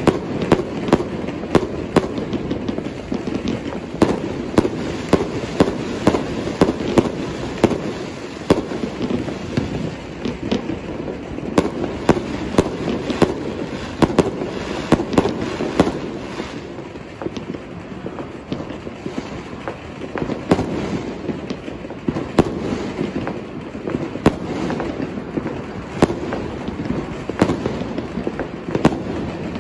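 Fireworks going off: a rapid, irregular series of sharp bangs over continuous crackling, easing a little about halfway through.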